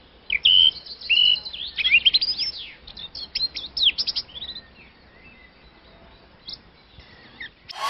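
Birds chirping: a busy run of short, quick chirps sweeping up and down, thinning out after about four seconds to a few scattered chirps. Loud electronic music cuts in right at the end.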